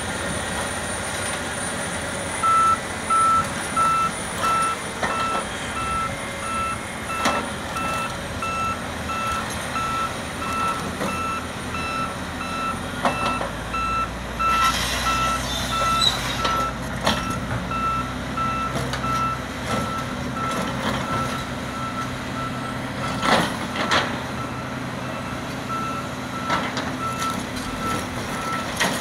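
Reversing alarm beeping at one pitch, about twice a second, from about two seconds in, over the rumble of heavy diesel machinery. A Hitachi Zaxis 470 excavator's ripper tooth tearing through rock adds scattered sharp cracks and scrapes.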